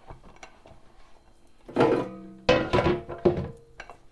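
Metal baking dishes knocking against the drawers of a Ninja dual-basket air fryer as they are set in: four clanks from about two seconds in, each with a brief ringing tone.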